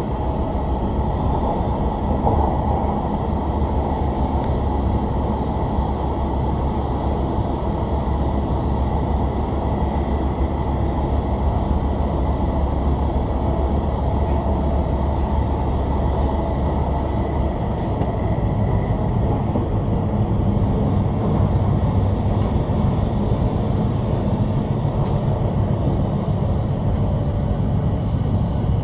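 Steady running noise inside an E5 series Shinkansen passenger car: a deep rumble of wheels on rail under a hiss of air, heard through the cabin as the train runs through a tunnel. The low rumble shifts a little past the halfway point.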